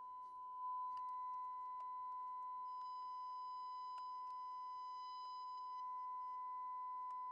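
Steady test tone from a signal generator's modulated FM signal, coming through a Braun SK25 tube radio's speaker while its front-end trimmer is adjusted to peak the signal. The tone gets a little louder about a second in and sounds harsher for a few seconds in the middle, with a few faint clicks.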